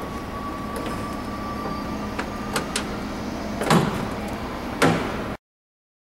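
Cross trainer parts being handled during reassembly: a few light clicks, then two louder clunks about a second apart, over a steady background hum. The sound cuts off abruptly about five seconds in.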